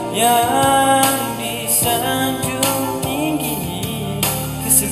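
A young man singing a Malay patriotic song solo into a microphone over instrumental accompaniment, holding long notes with vibrato.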